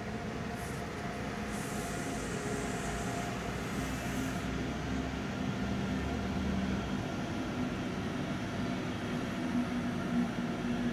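Intercity train hauled by a DB Class 101 electric locomotive rolling past: a steady rumble of the coaches with a low hum, growing slightly louder.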